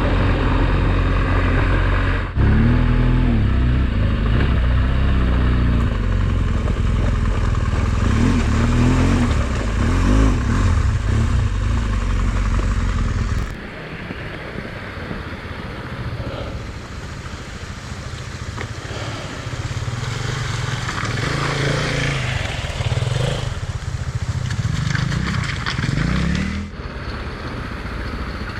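Motorcycle engine running while being ridden off-road, its pitch rising and falling with the throttle. About halfway through the deep rumble drops away suddenly and the engine runs on quieter.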